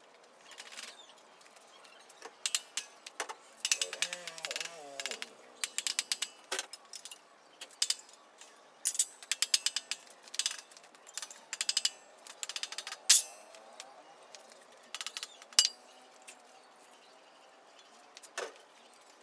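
Bursts of rapid metallic clicking and rattling from a homemade bottle-jack hydraulic press being worked by hand, with a few single sharp knocks, the loudest about 13 seconds in.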